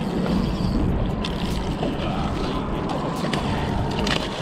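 Wind buffeting the microphone over water washing against shore rocks, with a hooked fish splashing in the shallows near the end.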